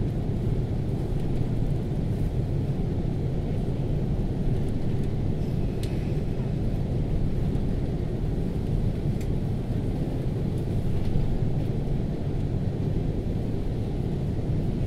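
Airliner cabin noise heard from a window seat while the jet taxis: a steady low rumble of the engines at taxi power and the aircraft rolling on the taxiway.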